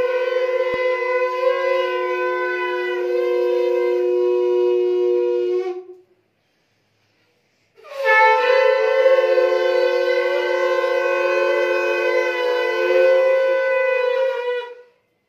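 Several conch shells (shankh) blown together in long held blasts, each shell at a slightly different pitch. One blast ends about six seconds in, and after a pause of nearly two seconds a second blast of about seven seconds follows.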